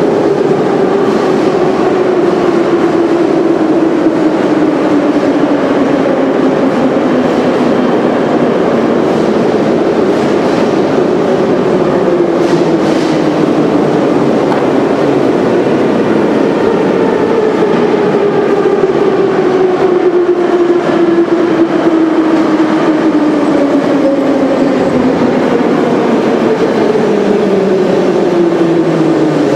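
Moscow Metro trains running along the platform: a loud, steady rumble of wheels on rail with an electric motor whine that falls slowly in pitch, several times over, as trains slow down.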